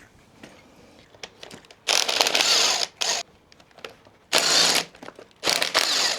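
Ratchet wrench clicking in three runs of about a second each, starting about two seconds in, with a few small tool clicks before them.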